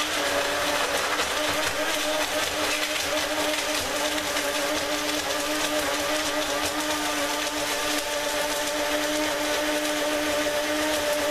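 Small single-serve personal blender running at full speed with a steady whine, crushing ice cubes in green juice, with a constant grinding clatter of ice.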